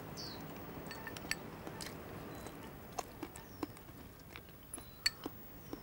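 Faint chewing while eating from a bowl with chopsticks, with a few short, light clicks scattered through.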